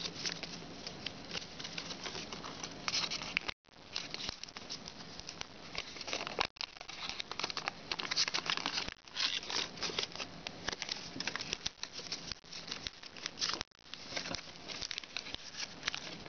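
Foil origami paper crinkling and rustling as it is folded and creased by hand, a dense run of small crackles, broken by three brief dropouts.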